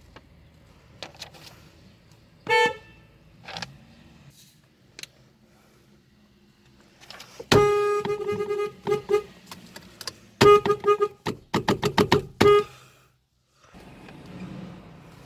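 Car horn honking: one short toot, then a long blast of about a second and a half, then a quick run of short toots in a row.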